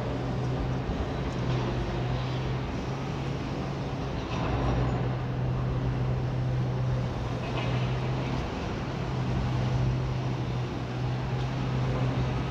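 Heavy diesel demolition machinery running: a steady low engine drone with broad rumbling noise and a few faint knocks and clatters.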